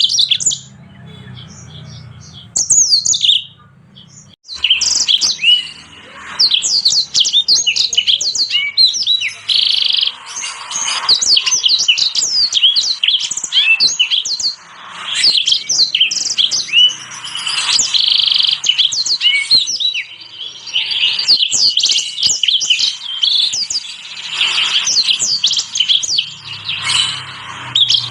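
Small songbirds of the canary and siskin kind singing a fast twittering song: a dense stream of high chirps, trills and quick rising and falling notes, after a short lull in the first few seconds.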